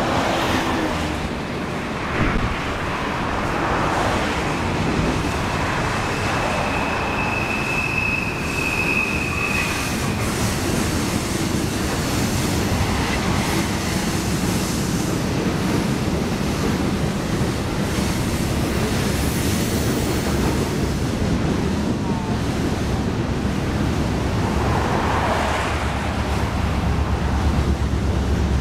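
Loaded covered-hopper grain train rolling past, a steady clatter of steel wheels on rail, with a thin high wheel squeal for a couple of seconds about eight seconds in. Near the end the low rumble of an opposing train's diesel locomotives rises as they draw up alongside.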